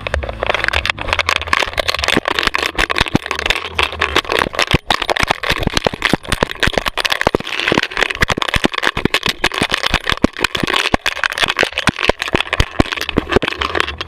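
Rapid, irregular clattering and rustling from a GoPro strapped to a running dog: the camera knocking in its mount and rubbing against fur, with leaves and brush scraping past as she crashes through undergrowth.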